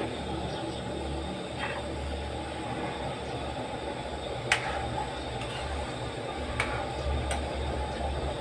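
A metal spoon clinks sharply against a metal pan of coconut-milk soup three times in the second half as it is stirred, over a steady low rumble.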